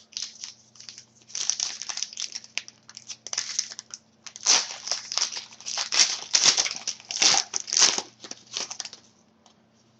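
A trading card pack wrapper being crinkled and torn open by hand: a run of crackling and tearing that is busiest and loudest around the middle and stops about nine seconds in.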